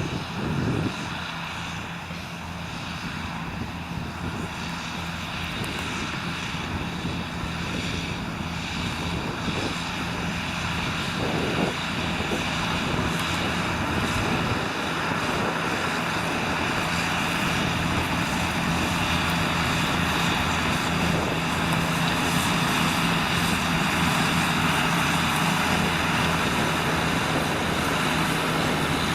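Diesel engine of a New Holland tractor working under load while pulling a Kverneland plough: a steady drone that grows gradually louder.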